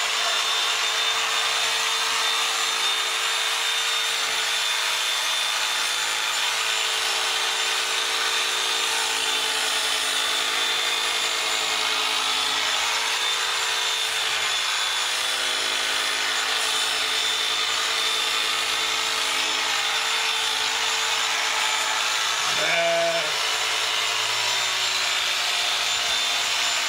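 Corded electric sheep-shearing clippers running steadily as they cut through a sheep's fleece. Near the end a sheep bleats briefly.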